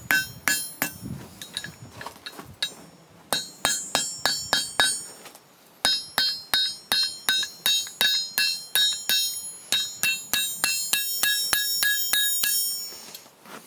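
Hand hammer striking hot iron on an anvil, each blow ringing out metallically. A few scattered blows come first, then after a short pause a steady run of about three blows a second that stops shortly before the end.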